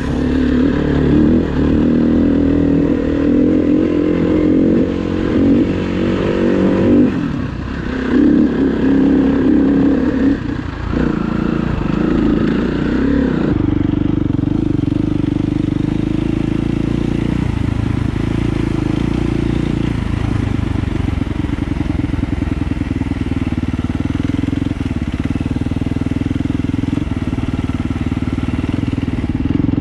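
Dirt bike engine running as it is ridden, the revs rising and falling through the first half, then holding steadier from about halfway.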